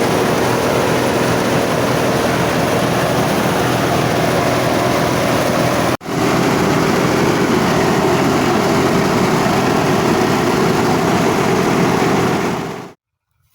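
Engine-driven rice threshing machine running steadily and loudly. It breaks off for an instant about six seconds in, then stops abruptly near the end.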